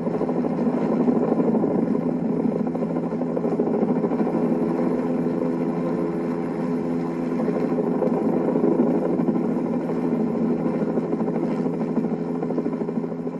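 MD 500-series light helicopter flying low, its rotor and turbine making a steady drone, beginning to fade near the end.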